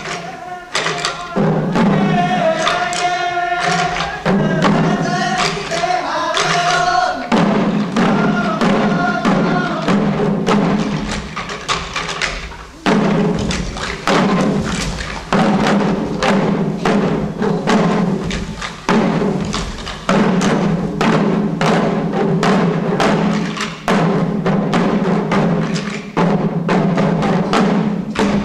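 Shishi odori deer dancers beating the small drums slung at their waists in a rapid, steady rhythm. Chanted singing rides over the drumming for the first several seconds and again briefly a little later.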